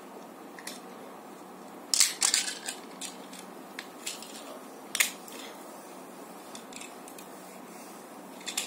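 Parts of a small plastic Tobot transforming toy car clicking and snapping as it is folded by hand. There is a cluster of clicks about two seconds in, a sharp single click about five seconds in, and lighter handling clicks between.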